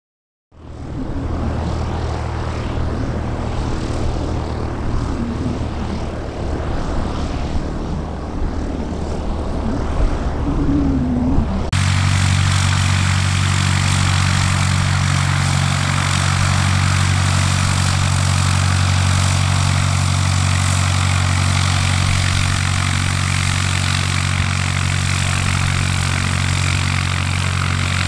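Light propeller aircraft's piston engine running steadily. About twelve seconds in, the sound cuts abruptly to a louder, steadier engine sound with a strong low hum.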